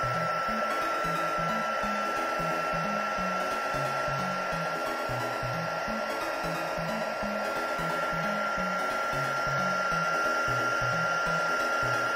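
Embossing heat gun running steadily, a blowing hiss with a constant high whine, held over UV resin in a silicone mold to pop air bubbles. Soft background music with a repeating pattern of low notes plays underneath.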